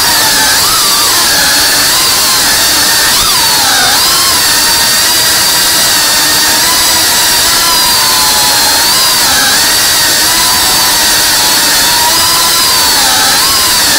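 FPV quadcopter's electric motors and propellers whining steadily, the pitch dipping and rising as the throttle changes.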